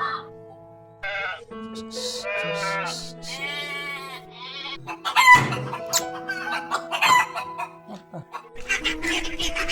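Rooster crowing, several calls in a row, over steady background music.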